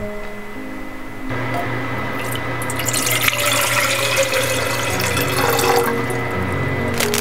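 Water poured in a stream from a measuring jug into a saucepan, splashing and stopping near the end, with soft acoustic guitar music underneath.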